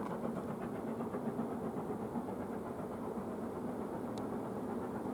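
Steady rumble of a train on the move, the Black 5 steam locomotive 45231 and its carriages, with a brief high squeak about four seconds in.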